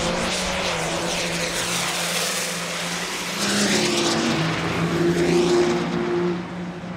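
Two Cummins inline-six turbo-diesel Ram pickups launching at full throttle and accelerating hard down a drag strip, engines running loud and steady. The sound swells a few seconds in, then falls away near the end.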